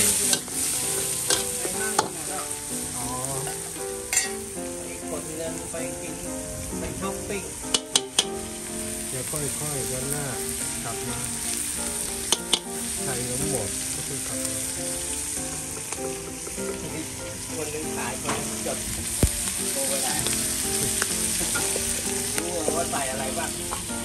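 Shrimp, squid and onion sizzling in hot oil in a steel wok (kata), stirred and tossed with a metal wok spatula. The spatula scrapes and clanks against the wok now and then, with three quick sharp strikes about eight seconds in.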